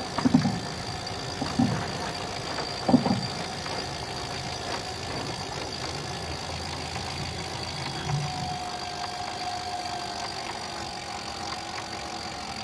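Electric cockpit winch running steadily to sheet in the headsail after a tack, with a few low clunks in the first three seconds. Its whine drops slightly in pitch later on as the sheet takes up load.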